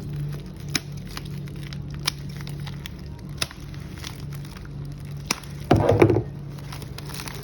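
Packaging being handled while unboxing: scattered light clicks and taps, with a louder crackling rustle about six seconds in, over a steady low hum.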